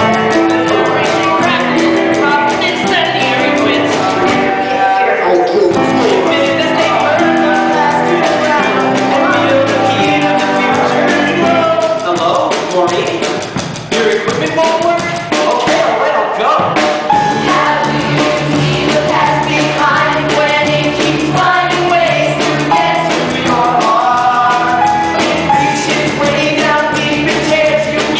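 Live rock musical number: a band with drum kit playing under sung vocals. There is a brief lull about halfway through, after which a steady bass line comes in.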